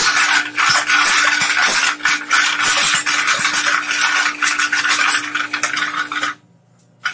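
Twin-shaft shredder's cutters crunching and cracking apart a plastic tail light assembly: a dense run of sharp cracks and grinding over a steady hum. The sound cuts off abruptly about six seconds in, with one short click near the end.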